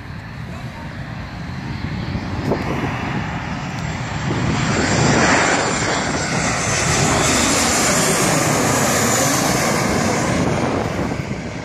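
Boeing 737-800 jet airliner on final approach passing low overhead, its CFM56 turbofan engines growing louder as it nears. The engines are loudest about five seconds in while it is overhead, with a sweeping, shifting rush, then ease off as it moves away toward the runway.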